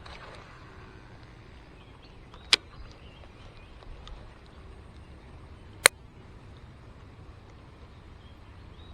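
Two sharp clicks about three seconds apart over a faint steady outdoor background.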